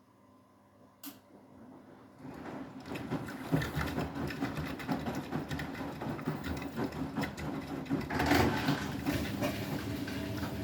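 Beko WTK104121W washing machine: a single sharp click after a pause, then about two seconds in the drum motor starts and the drum turns, a busy mechanical rattling run that grows louder and stays loud.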